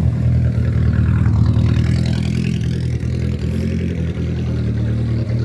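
A car engine running steadily with a deep, low note, while a higher-pitched engine sound rises and falls away about two seconds in.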